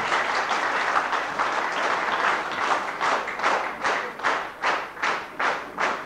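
A large audience applauding. The scattered applause falls into unison rhythmic clapping, about two and a half claps a second, from about two seconds in.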